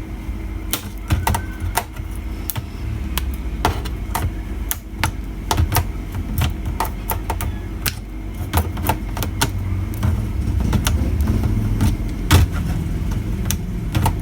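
Irregular sharp clicks and small knocks of a replacement speaker, parts and tools being handled and fitted into a TV casing, over a steady low hum.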